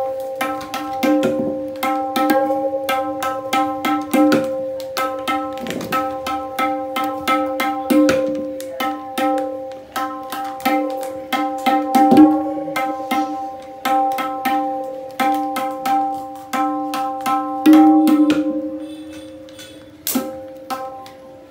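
Dayan (right-hand tabla) struck in quick repeated strokes, a few a second, each ringing with the same clear pitched tone while it is being tuned with wooden gattas under its straps. Near the end one harder stroke rings out and slowly fades.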